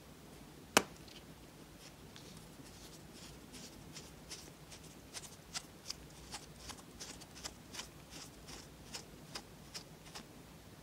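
Plastic lip balm tube handled: its cap comes off with one sharp click a little under a second in, then the twist-up base is turned, giving a run of small plastic clicks, about three a second, from about four seconds in.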